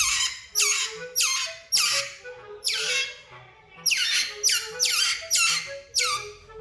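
Otter pup squealing: a rapid run of high-pitched calls, each sliding down in pitch, about ten in all with a short pause about halfway through.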